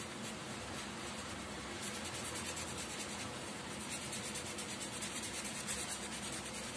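Marker pen scribbling on cardboard, rapid back-and-forth strokes colouring in a circle, the strokes becoming plainer from about two seconds in.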